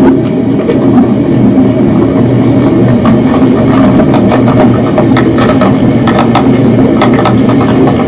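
Underwater sound: a loud, steady low rumble with many short clicks and ticks scattered through it.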